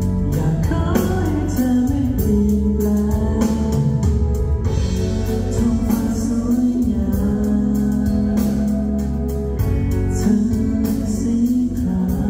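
A pop song performed live: male voices singing into microphones over backing music with a steady beat, heard through the concert sound system.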